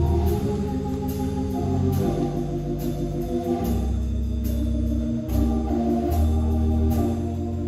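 Organ playing slow, sustained chords as the instrumental introduction to a gospel song, with a light beat a little faster than once a second.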